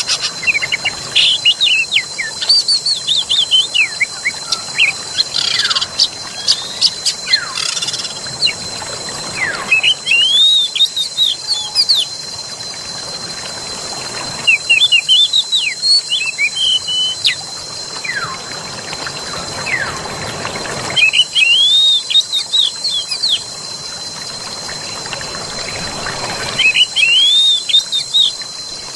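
Songbirds chirping in the forest, in bursts of rapid, arched high notes that come every five or six seconds. Under them run a steady thin high-pitched tone and a soft rush of flowing water.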